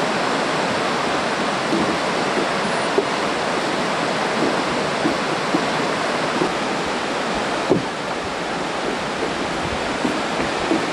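Whitewater river rushing over rocky rapids, a steady, even rush of water. A faint knock about eight seconds in.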